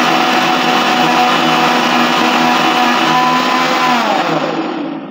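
Electric countertop blender running at full speed, churning a thick papaya milkshake. It is switched off about four seconds in and its whine falls in pitch and fades as the blades wind down.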